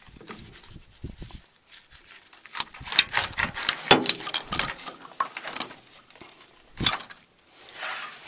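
Spent plastic shotgun shell hulls clattering and rustling as a gloved hand digs among them, with a run of sharp clicks in the middle and a single knock toward the end.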